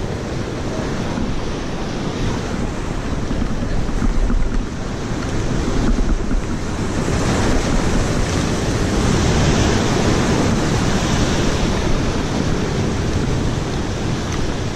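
Sea surf breaking and washing over shore rocks, with wind buffeting the microphone as a low rumble. The wash swells louder about four seconds in and stays stronger through the middle.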